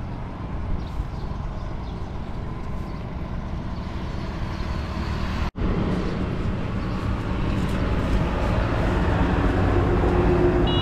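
Steady low outdoor rumble, like road traffic, with a sudden brief dropout about halfway through; it grows slowly louder in the second half.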